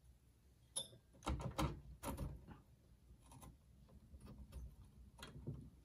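A handful of light clicks and knocks of screwdriver tips and the metal retaining clip against the finned aluminium CPU heat sink of a Power Mac G4 Quicksilver, as the heat sink is pried and worked loose from its processor card.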